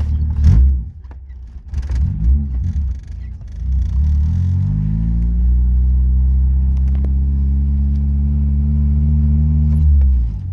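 Honda H22 four-cylinder engine in a swapped Civic, driving on its first run after a transmission install. The revs climb about four seconds in, hold steady, then drop off near the end.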